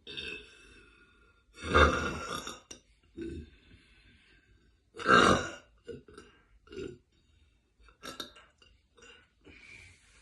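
A woman burping loudly: two long burps, the first about two seconds in and the second about five seconds in, with shorter, quieter sounds between and after them.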